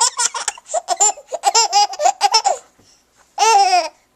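Six-month-old baby laughing in quick, rapid bursts for about two and a half seconds, then, after a short pause, one longer laugh near the end.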